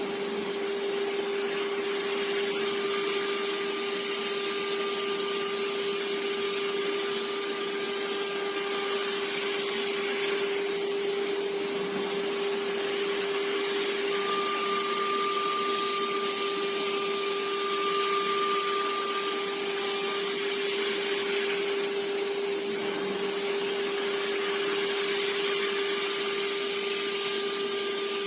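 Small CNC machine running: its drill spindle motor gives a steady, unbroken whine with a hiss above it, while a second, higher tone from the axis drives starts and stops in stretches of a few seconds as the axes move.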